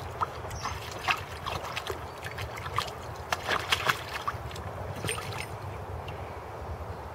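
Water splashing and sloshing in a shallow plastic paddling pool as a Staffordshire Bull Terrier wades and paws at it. Uneven splashes come throughout, with a quick flurry a little past the middle.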